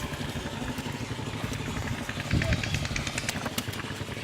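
A small engine running steadily with a rapid low pulsing, with a brief louder thump about halfway through and a run of light clattering ticks just after.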